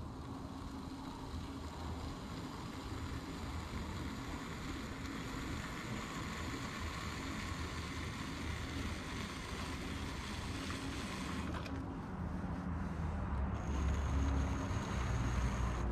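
Trimming tool shaving clay from the foot of a plate spinning on an electric pottery wheel: a steady scraping hiss over the low hum of the wheel's motor. The low hum grows louder near the end.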